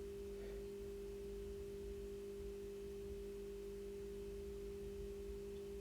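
A steady low hum made of two constant tones, one pitched an octave above the other, with nothing else sounding.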